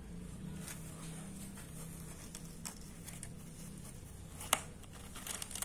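Faint scratching and rustling on cardboard as small kittens shift about in a box, over a low steady hum. There is a sharp tick about four and a half seconds in and a quick cluster of small ticks near the end.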